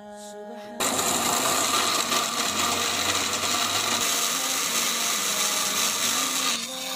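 Electric mixer grinder running at full speed, blitzing bread slices into breadcrumbs. It starts about a second in with a steady whirring and cuts off shortly before the end.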